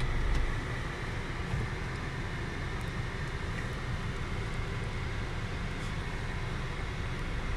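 Steady mechanical hum and rush of a Belanger Spinrite tunnel car wash's equipment running, heard from inside the car's cabin as the car is drawn in.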